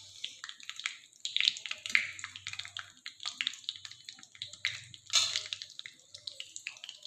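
Tempering of garlic, cumin and whole spices frying in hot oil in a kadhai: irregular crackling and spitting, with one louder crack about five seconds in.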